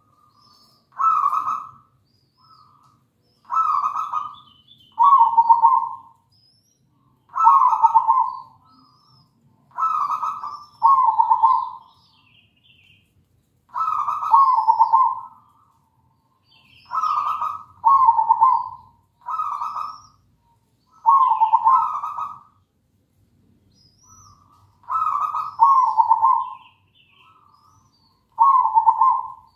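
Zebra dove (perkutut) cooing in full song: a string of coo phrases, often in pairs, repeated every second or two. Faint high chirps of other small birds sound between the coos.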